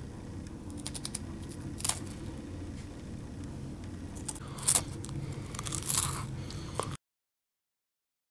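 A saltine cracker being bitten and chewed: a few sharp, crackly crunches over a steady low hum. The sound cuts off to silence near the end.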